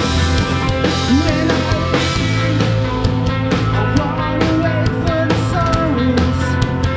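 Rock band playing live: drum kit, bass and electric guitars, with a lead line that bends and wavers in pitch over the steady band.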